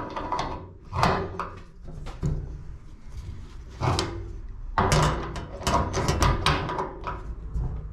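Adjustable grips clicking and knocking on a radiator valve's compression nut as it is tightened onto the pipe, in irregular strokes that bunch together in the second half.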